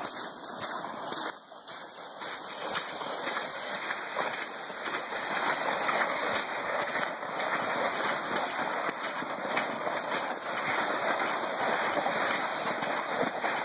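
Plastic sled sliding over wet, slushy snow: a steady scraping hiss full of small crunches, with footsteps in the slush. It dips briefly near the start, then grows louder over the next few seconds and holds.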